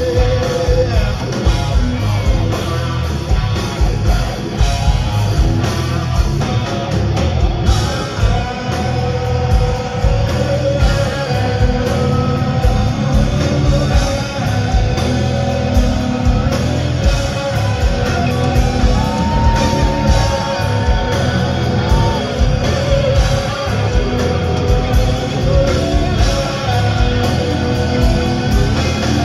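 Live rock band playing: distorted electric guitars, bass and drums with a male lead singer holding long notes, heard from within the audience in a concert hall.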